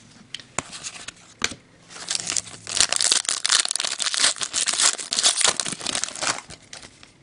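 Foil wrapper of an Upper Deck hockey card pack being torn open and crinkled by hand: a dense crackling that starts about two seconds in and stops shortly before the end. A few light clicks come before it.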